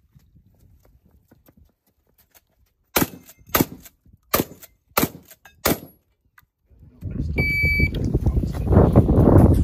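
Five gunshots in quick succession, a little over half a second apart, from a competitor's long gun. Then a short electronic shot-timer beep, and loud wind buffeting on the microphone for the last few seconds.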